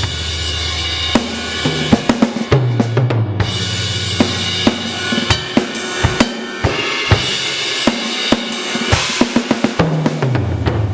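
Sampled Tamburo drum kit with a big-room ambience preset, played on an electronic kit through a 2Box drum module: kick, snare and hi-hat with cymbal crashes at the start, about three seconds in and near the end, and a descending tom fill about two seconds in.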